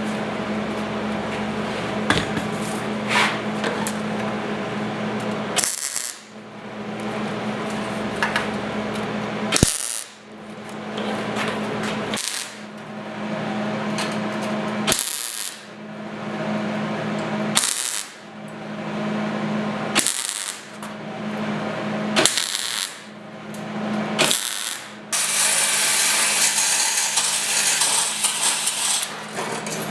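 A power tool running on the metal seat pan, starting and stopping every two to three seconds. For about the last five seconds it runs without a break, with a harsher hiss.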